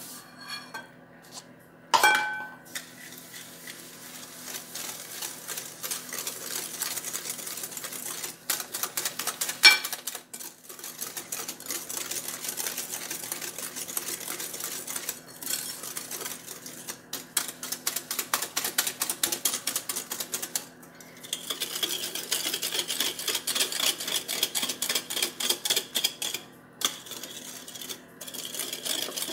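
Wire whisk beating eggs and sugar by hand in a glass bowl: a fast, steady clatter of the wires ticking against the glass, with two brief pauses. A ringing clink against the bowl about two seconds in.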